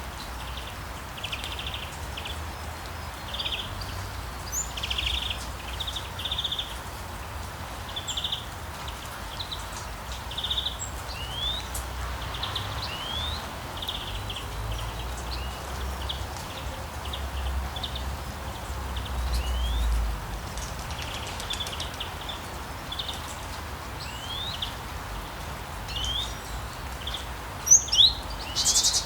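Outdoor nature ambience of small birds chirping: short repeated calls and quick rising whistles over a steady background hiss, with a few louder, sharper calls near the end.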